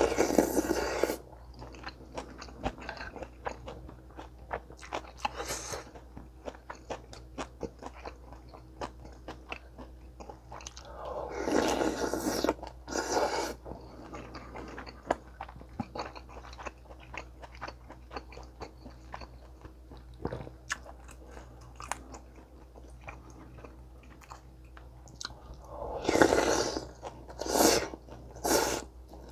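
Close-miked chewing and crunching of food: a steady run of small crunches, with three louder, longer bouts at the start, about twelve seconds in, and near the end.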